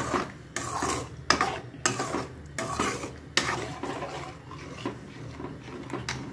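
A metal spoon stirring tomato-cream gravy in an aluminium kadai, scraping and knocking against the pan about once or twice a second.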